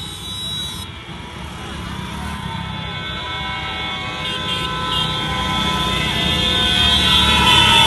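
A large pack of motorcycles riding toward the listener, their engines growing louder toward the end, with several steady high tones held over the engine noise.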